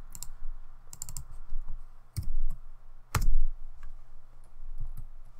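Computer keyboard keys and mouse buttons clicking in an irregular run, with two heavier clacks about two and three seconds in.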